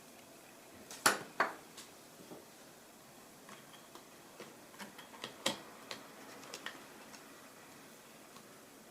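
Small clicks and taps of ThinkPad X240 laptop parts being handled during disassembly work: two sharp clicks about a second in, then scattered lighter ticks.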